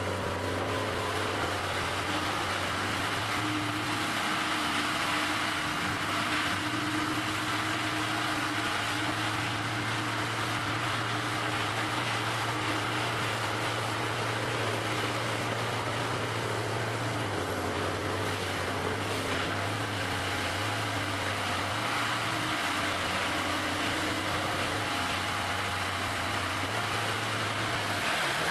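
An engine running steadily with a constant low hum and no change in speed.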